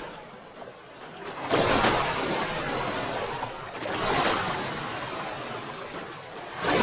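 Sea waves crashing and washing back. One wave hits sharply about a second and a half in and slowly dies away, a softer surge rises about four seconds in, and another wave hits just at the end.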